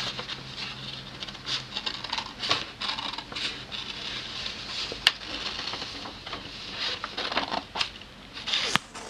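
Scissors snipping through a sheet of paper, an irregular run of crisp cuts with the paper crackling and rustling as it is turned. Two sharper clicks stand out, about five seconds in and near the end.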